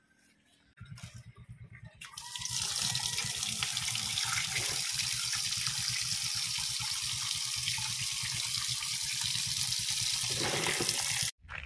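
Tap water pouring into a metal pot of cut beef feet, rinsing the meat with a steady splashing rush. It starts about two seconds in and cuts off suddenly near the end.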